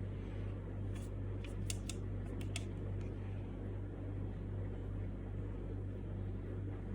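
Steady low background hum, like a fan running, with a quick run of about half a dozen light clicks between about one and two and a half seconds in.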